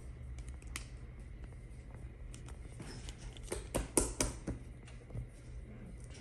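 Small handling noises as glue is added to a bowl of shaving cream: scattered light clicks and taps from the bottle and bowl, with a quick cluster of louder ones about four seconds in, over a low steady hum.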